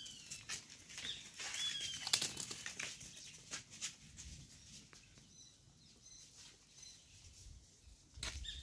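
Scattered light rustles and crunches of steps on dry grass and earth. Over them come a few high, falling whistled bird calls, one at the start and one about two seconds in, with faint short chirps midway.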